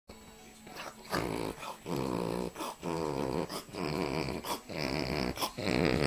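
A dog snorting in a run of about five long snorts, each lasting half a second or more, spaced roughly a second apart.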